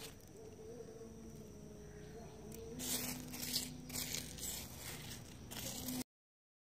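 Small pebbles of gem-bearing gravel scraping and crunching as a finger rakes through them, in several short scratchy bursts from about three seconds in, over a faint steady hum. The sound cuts off abruptly about six seconds in.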